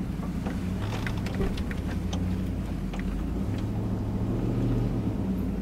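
SUV engine droning inside the cabin while driving off-road, with scattered knocks and rattles from the bumps. The engine note grows stronger about three and a half seconds in as the vehicle noses up a climb.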